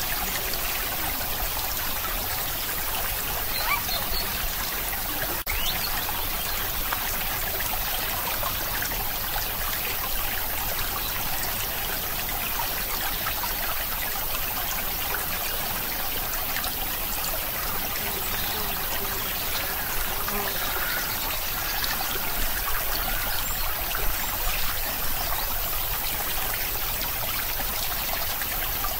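Steady trickling, running-water noise, like a stream, with a brief dip about five seconds in.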